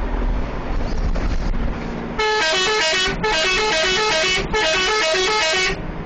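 Bus 'telolet' musical horn playing a short stepping tune in three phrases, starting about two seconds in, over the steady rumble of the bus driving on the road.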